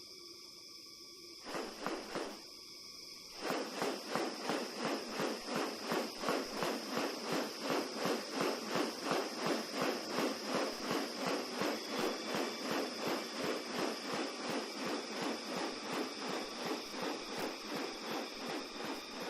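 A bird-of-paradise calling in a long rapid series, about three calls a second, after two short calls, over a steady high-pitched hum.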